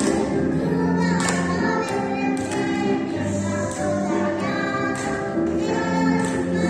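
A song with children's voices singing over an instrumental accompaniment.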